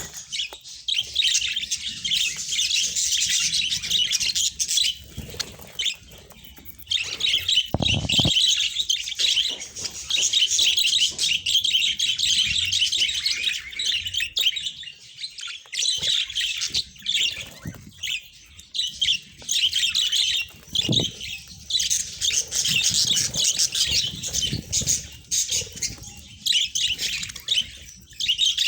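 Budgerigars chattering and warbling in a dense stream of rapid chirps, with a brief lull about five seconds in.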